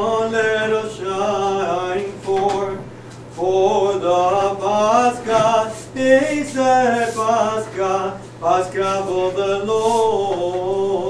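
Orthodox liturgical chant: one voice chanting unaccompanied in long melodic phrases, with a short pause about three seconds in. A steady low hum runs underneath.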